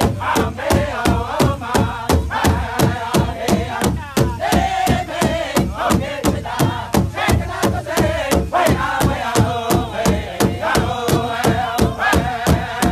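Powwow drum group singing in unison around one large powwow drum, which several singers strike together with beaters in a steady, fast beat of about three to four strikes a second. The song is high-pitched, with the voices holding and bending long notes over the drum.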